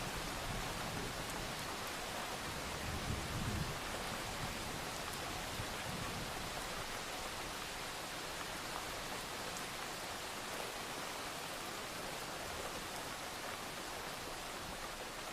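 Steady rain falling, an even hiss, with a faint low rumble of distant thunder in the first few seconds.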